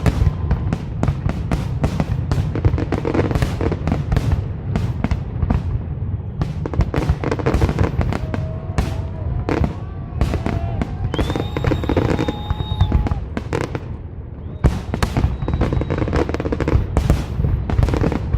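Fireworks display: a dense, rapid barrage of shell bursts and crackles over a continuous low rumble, with a few brief whistling tones past the middle.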